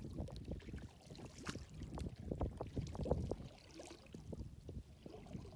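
Water splashing and sloshing around a canoe as it is paddled, in short irregular strokes over a low rumble.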